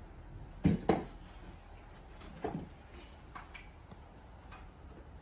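A few sharp knocks and clicks: two loud ones in quick succession about a second in, another about two and a half seconds in, then a few fainter ticks.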